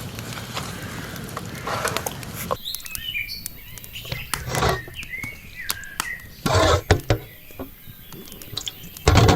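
Small birds chirping and twittering in quick short gliding notes, beginning about two and a half seconds in. A few louder short noisy sounds break in over them, the loudest near the end.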